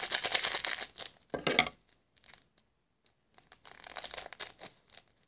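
Small plastic packet crinkling and tearing as it is handled and opened. The crinkling is loud for about the first second, followed by a short knock and then fainter, scattered rustling.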